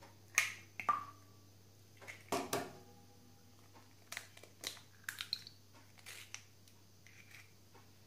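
Eggs being cracked on the rim of a glass bowl: a run of sharp taps and shell cracks, a few of them leaving the glass ringing briefly.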